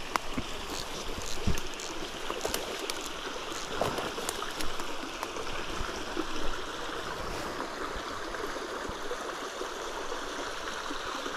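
Small woodland creek running steadily, with scattered rustles and taps of handling in roughly the first seven seconds.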